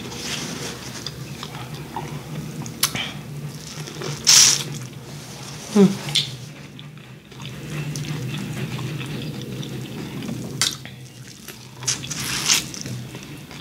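Close-miked wet chewing and lip smacking on buttery corn on the cob: several sharp wet smacks between quieter chewing, with a fresh bite into the cob near the end.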